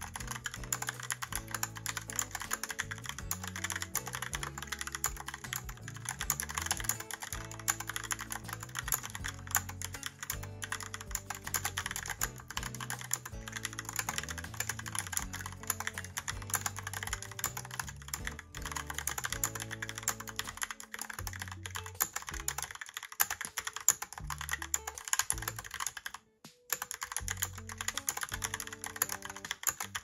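Fast, continuous typing on a Logitech POP Keys mechanical keyboard with round typewriter-style keycaps, a rapid stream of key clicks, with one short break near the end. Background music plays underneath.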